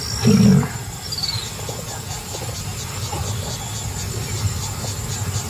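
Crickets chirping in a rapid, steady rhythm over a low background rumble, with a brief, loud low sound about half a second in.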